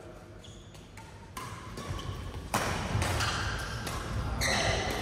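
Badminton rackets striking a shuttlecock during a doubles rally: a few sharp hits about a second apart, the loudest about halfway through, echoing in a large hall.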